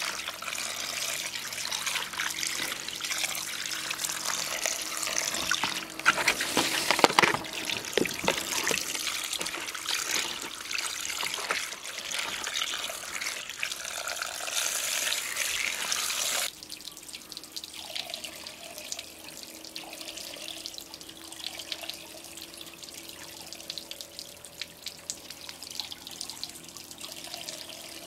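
Running tap water splashing onto fresh anchovies in a plastic colander while hands rinse and stir the fish. About two-thirds of the way through, the water noise drops off abruptly and the sound becomes much quieter.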